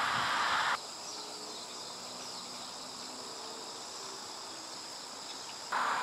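Steady high-pitched insect chirring, faint, with a loud steady hiss that cuts off abruptly under a second in and cuts back in shortly before the end.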